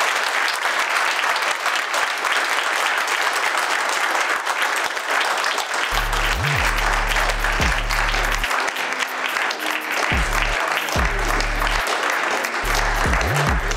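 A seated crowd applauding steadily. From about six seconds in, a low steady hum cuts in and out several times underneath the clapping.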